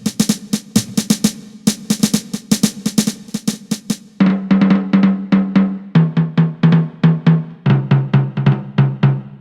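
Millenium MPS-150 electronic drum kit played with sticks and heard through its sound module: fast snare and cymbal hits for about four seconds, then quick rolls down the toms, each group of strokes lower in pitch than the one before.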